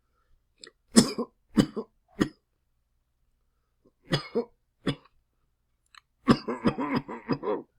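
A person coughing in three bouts: a few sharp coughs about a second in, two or three more around four seconds in, then a quick run of many coughs near the end.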